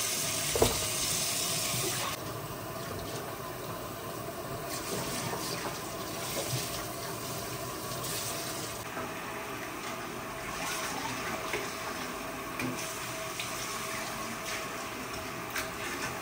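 Water running, as from a kitchen tap, heavier for the first two seconds and then a steadier, softer flow, with a few light knocks.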